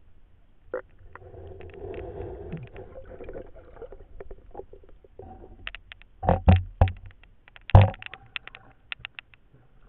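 Muffled underwater sounds of a diver moving through river water, a low rumbling swish. They are followed by a string of sharp knocks and splashes, the loudest two about six and a half and eight seconds in, as the camera reaches the water's surface.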